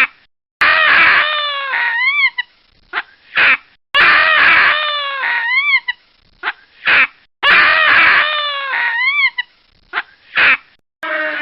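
Baboon screaming: a harsh call about a second long, followed by shorter arched cries and quick yelps, the same sequence repeating three times about every three and a half seconds.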